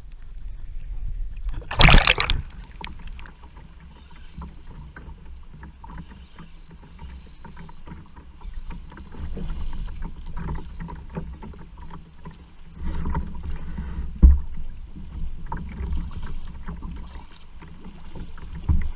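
Wind buffeting the microphone and choppy water slapping against a canoe's hull while a largemouth bass is played on a spinning rod, with a loud rush about two seconds in, a sharp thump past the middle, and a splash near the end as the hooked bass thrashes at the surface beside the canoe.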